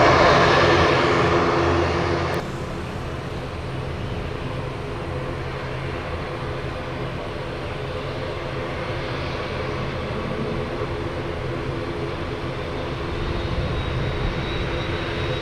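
An ATR 72-600 turboprop's engines and propellers, loud, cut off abruptly about two seconds in. A quieter, steady airliner sound follows: the Airbus A330-302 jet on approach, with a thin high engine whine growing near the end.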